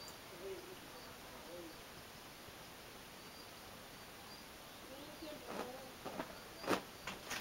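Faint steady hiss with a few soft, low wavering calls, and a handful of sharp clicks in the last two seconds, one much louder than the rest.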